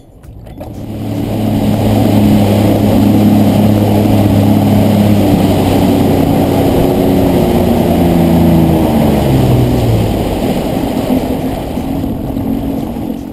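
2015 Sea-Doo GTX jet ski engine picking up speed and running hard, with water rushing against the hull. The engine note drops over the last few seconds as it eases off.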